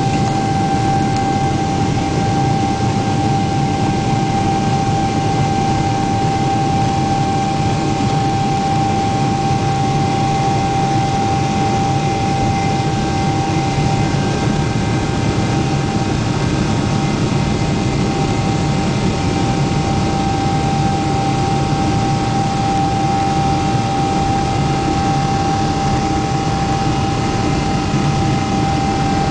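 Boeing 777-300 airliner cabin noise: a steady jet-engine roar with a constant whine, heard from inside the cabin.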